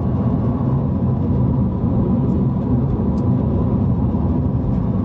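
Steady low rumble of road and engine noise inside a car's cabin while driving at speed.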